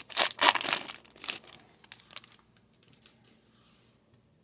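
Plastic-foil trading card pack wrapper crinkling and being torn open in a few loud crackling bursts over the first second, followed by a few lighter clicks and rustles that die away.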